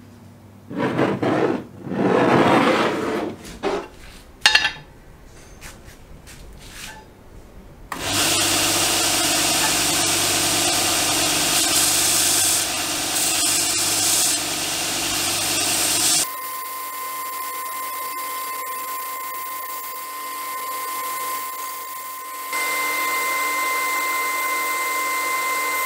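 A few irregular rubbing and knocking sounds, then about eight seconds in a belt sander grinding the steel axe head, a loud steady hiss. About sixteen seconds in the sound changes to a belt grinder running with a steady high whine, stepping up louder a few seconds before the end.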